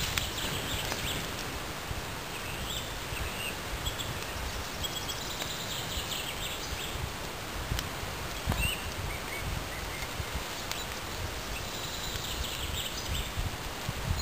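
Small woodland birds chirping in short calls over a steady low rumble and rustling, with a couple of sharp clicks a little past halfway.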